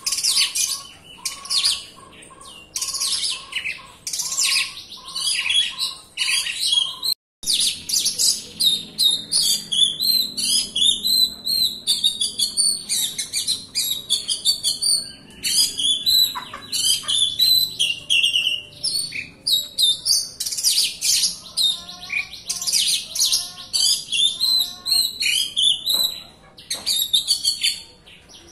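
Oriental magpie-robin (kacer) singing in full, unbroken voice: a fast, dense run of varied high whistles and chirps with hardly a pause. A lower note repeats about twice a second under it for the first few seconds, and the sound drops out for a moment about seven seconds in.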